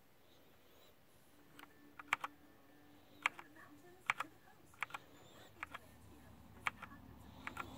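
Keys on a Glorious GMMK mechanical keyboard with Gateron Brown switches being pressed one stroke at a time, about once a second, starting after about a second and a half. Most strokes sound as a quick double click of press and release.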